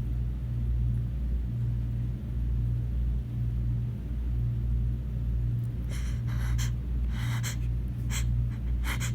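A woman's sharp, gasping in-breaths as a sneeze builds and she holds it back, coming in quick short pairs from about six seconds in. A steady low hum runs underneath.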